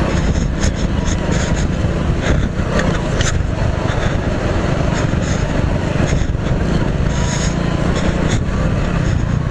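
Hero HF Deluxe's 97cc single-cylinder engine running under way over a rough gravel and stone track, heard as a steady low rumble. Scattered short knocks and rattles come from the bike jolting over the stones.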